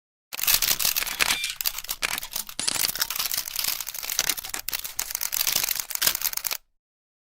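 Camera shutter firing in a rapid burst, several sharp clicks a second for about six seconds, then stopping abruptly.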